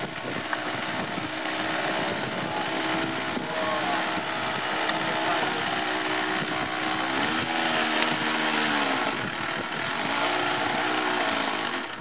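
A small model-aircraft engine running with a steady buzz, its pitch dropping and coming back up twice in the second half.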